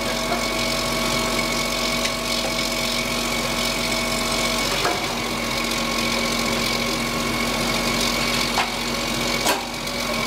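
Heavy diesel construction machinery idling with a steady drone, and a few short knocks about halfway through and near the end.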